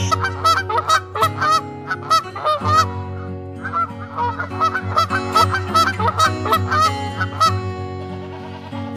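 A flock of birds calling over and over in quick succession, in two spells with a short break between them, thinning out near the end. Steady background music runs underneath.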